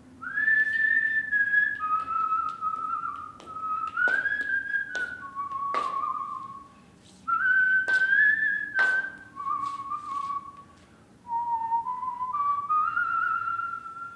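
A person whistling a tune in short phrases of one to two seconds, with a few sharp clicks or taps among the notes.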